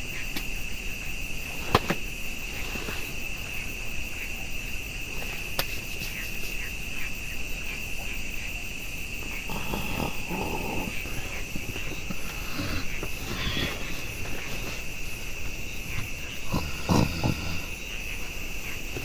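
Night insect chorus: a steady, high-pitched continuous trill. A sharp click comes about two seconds in, and a few short, lower, closer sounds come near the middle and near the end.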